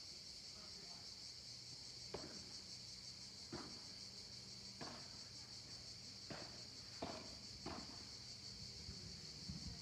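Padel rally: about six sharp hits of the ball on rackets, coming every second or so, starting about two seconds in. Under them runs a steady high-pitched insect chorus.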